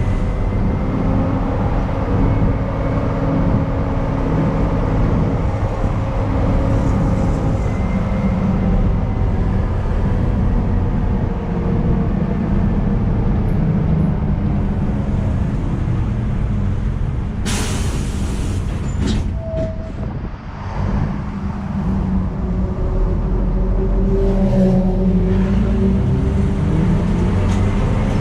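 Inside a public bus under way: the engine and road rumble drone steadily, the engine note rising and falling as the bus changes speed. About seventeen seconds in, a short, sharp hiss of compressed air is let out, then the engine eases off briefly before pulling up again.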